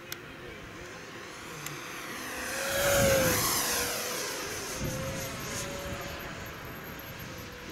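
Radio-controlled F-104 Starfighter model jet making a low pass. Its whine grows louder to a peak about three seconds in, drops in pitch as it goes by, then fades as the jet climbs away.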